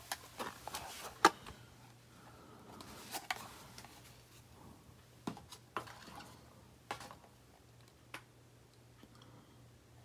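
Handling noise: scattered light clicks and taps, about eight of them a second or so apart, over a faint steady hum, as a small cardboard product box is picked up from a wire shelf and handled.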